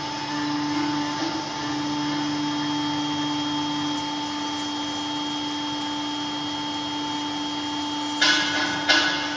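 CNC router spindle running steadily while machining aluminum, a hum of several fixed tones over a rushing noise; one lower tone drops out about four seconds in. Two short, louder scraping bursts come near the end.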